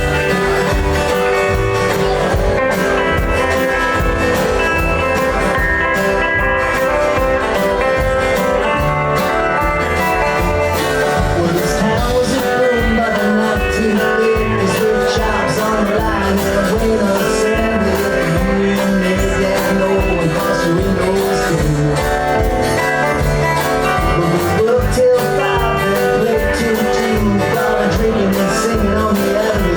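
Live band playing a country-blues rock song: guitars over a steady beat.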